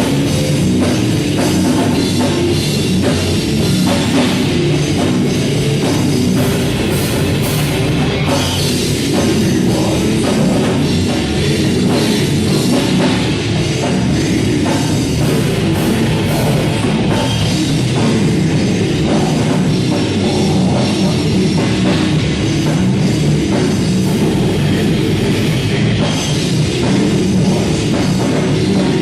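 Heavy metal band playing live: distorted electric guitars, bass and a drum kit with fast, steady drumming.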